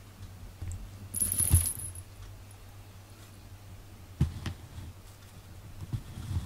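A cat's collar charm jingles with a short metallic ring about a second in, followed later by a few soft knocks and bumps.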